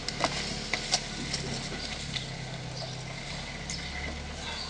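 Scattered light taps and scuffs of shoes and hands on an icy concrete driveway as a fallen person scrambles back up, over a steady low hum.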